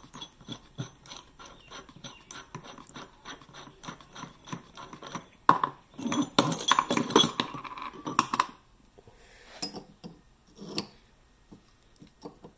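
Metal-on-metal handling: a quick run of light clicks as the nut and bearing on a steel shaft are worked, then a louder clinking clatter from about five and a half to eight and a half seconds as the bearing is handled and set into a plasma-cut steel plate, ending in a few scattered taps.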